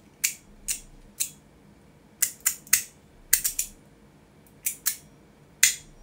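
Titanium Ju Zhen EDC 'Tenor' fidget slider snapping through its magnetic detent notches: about a dozen sharp clicks, some single and some in quick runs of two or three, each with a brief high ping from the slider's built-in tuning fork.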